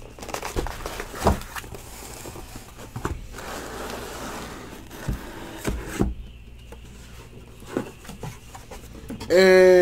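Cardboard trading-card box and foil packs being handled: a handful of separate sharp knocks with scraping and rustling as the packs are taken out of the box, quieter in the last few seconds.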